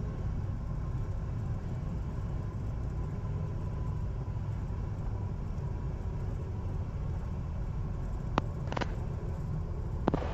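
Cessna 172's engine idling with the throttle pulled back during the landing rollout, a steady low rumble as heard through the cockpit audio. Two short clicks sound about eight seconds in.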